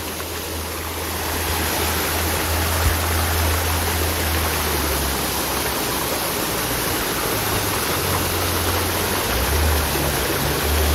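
Spring-fed river water rushing steadily over stones, growing a little louder about a second in, with an uneven low rumble underneath.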